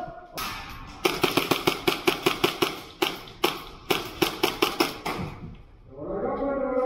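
Airsoft guns firing in rapid strings of sharp snaps, several shots a second, for about four seconds, then a brief lull.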